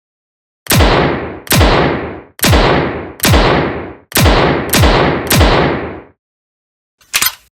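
Revolver firing seven shots in steady succession, a little under a second apart, each shot ringing out before the next, followed near the end by a short cluster of metallic clicks.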